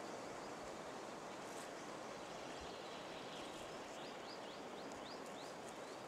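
Faint, steady forest ambience hiss. About four seconds in, a wild songbird sings a quick run of about seven short rising high notes.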